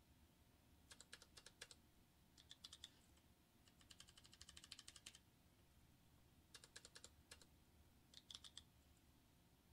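Faint typing on a computer keyboard in five short bursts of keystrokes with pauses between them.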